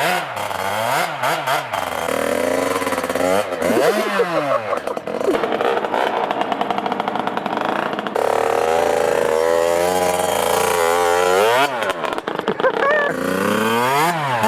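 Pit bike engine running and revving, rising and falling in pitch several times, with a steadier run at higher revs in the middle.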